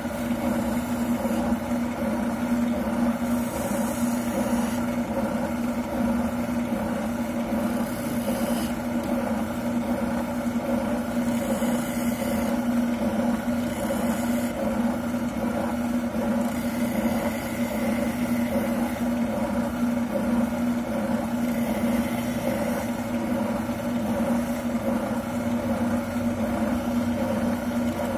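Wilton oscillating sander running with a steady, even hum as a shotgun buttplate is worked against the abrasive to follow the stock's contour. Several times a brief higher hiss rises over the hum as the part is pressed to the sanding surface.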